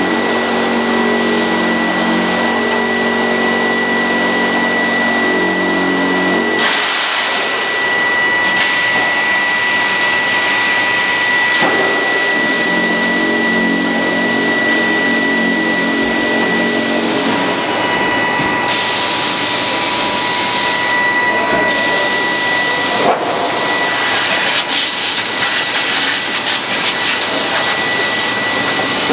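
Grinding ball production line machinery running: a loud, steady hiss with a constant high whine. A lower machine hum drops out about a quarter of the way through and comes back for a stretch in the middle.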